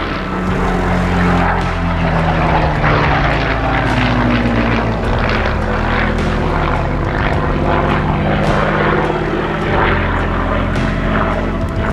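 Propeller aircraft overhead: a Supermarine Spitfire's piston engine drones past, its pitch rising and then falling, along with the engines of a formation of small biplanes.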